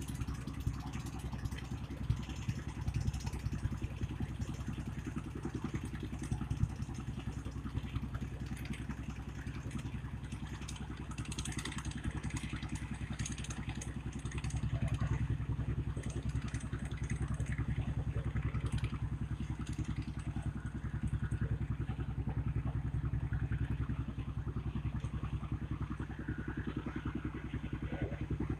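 A boat's engine running steadily, a low throbbing hum that grows louder about halfway through.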